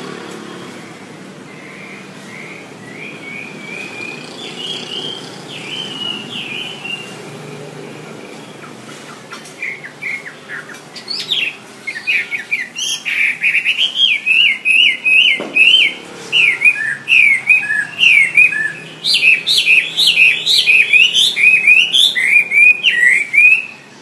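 Chinese hwamei (Garrulax canorus) singing: soft whistled phrases at first, then from about ten seconds in a loud, fast run of varied, repeated whistled notes that stops abruptly near the end.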